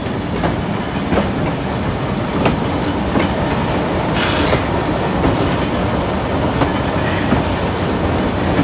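Train running along the track, heard as a steady rattle of a railway carriage with wheels clicking over rail joints at uneven intervals. A brief rushing hiss comes about four seconds in.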